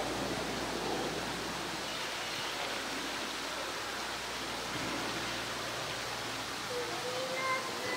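Steady, even rushing noise with no clear events in it. Near the end comes a brief, faint pitched call or voice.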